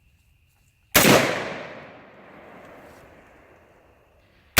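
A single gunshot about a second in, its report echoing and dying away over about three seconds, then another shot right at the end.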